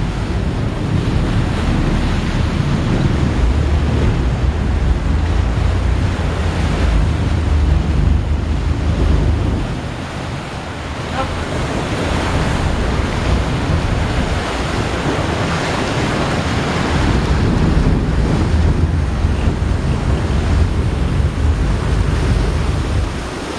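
Wind buffeting the microphone over the rush of a boat's wake churning through open sea, a loud, steady noise with a heavy low rumble that eases for a moment about ten seconds in.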